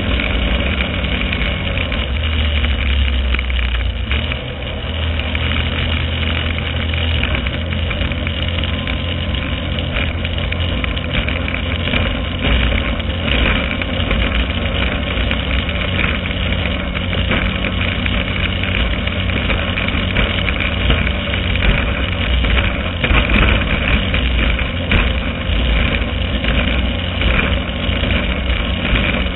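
Outboard engine of a GT-30 circuit racing boat running steadily at speed, heard from on board with wind and water noise, dipping slightly about four seconds in.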